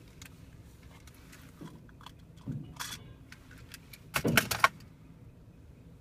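Close metallic jingling and rattling in two bursts, a short one about two and a half seconds in and a louder one a little after four seconds, over a low steady background rumble.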